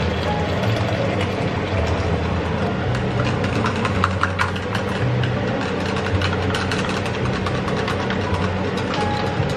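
Hot water poured from an electric kettle into a jug of vegetable stock, then stirred with a wooden stick that clinks lightly against the jug about three to five seconds in, over a steady low hum.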